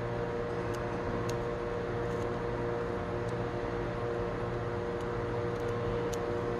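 Steady machine hum with a few faint, light clicks scattered through it as small screws are tightened on an RC dozer drive sprocket assembly.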